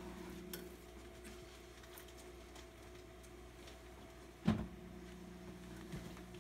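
Quiet room with a steady low hum and a few faint ticks; one sharp knock about four and a half seconds in.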